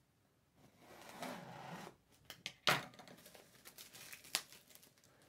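A cardboard product box being opened: scissors slitting the tape seal with a soft scratching and rustling, then a series of sharp clicks and snaps as the box flaps and packaging are pulled open, the loudest nearly three seconds in.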